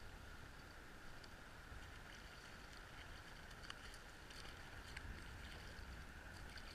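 Near silence: a faint steady hiss with a few faint clicks.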